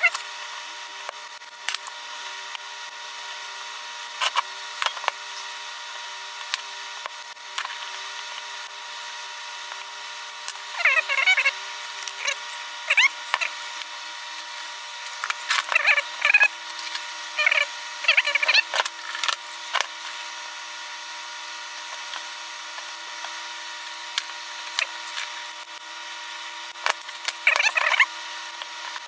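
Tool work on a DeWalt li-ion battery pack whose cells are being taken out. Short scraping bursts and sharp clicks come in clusters about a third of the way in, around the middle and near the end, over a steady hum.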